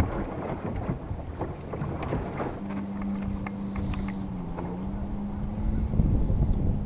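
Wind rumbling on the microphone on open water, with light clicks and knocks in the first couple of seconds. From about two and a half seconds in, a steady low hum joins it and holds to the end.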